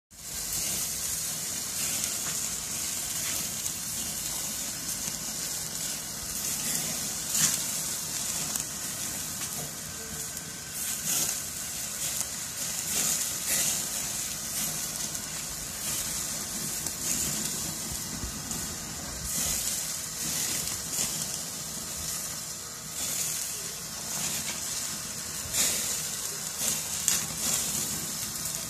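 Sirloin steak sizzling on a rotisserie spit over open grill flames: a steady sizzling hiss with frequent crackles and pops.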